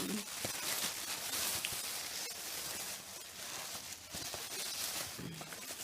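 Paper food packaging rustling and crinkling as the order is handled, with a few faint clicks.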